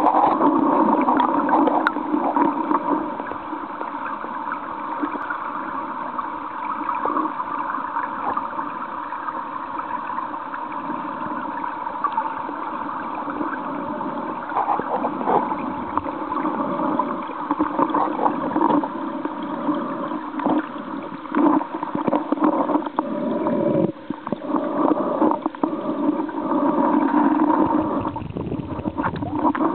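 Muffled rush and gurgle of a stream's current heard underwater, steady throughout, with scattered small clicks and knocks in the second half.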